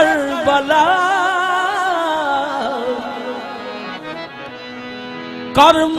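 Qawwali music: a singer's long, wavering melismatic line over harmonium, fading to softer held harmonium notes. About five and a half seconds in, the ensemble comes back in loudly with sharp percussion strikes.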